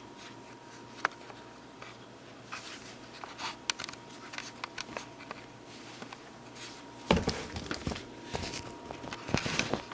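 Handling noise of vacuum attachments being fitted: plastic clicks, taps and rubbing as a bare floor tool goes onto a backpack vacuum's hose, with no motor running. A sharp click comes about a second in, and the loudest bouts of handling come about seven seconds in and near the end.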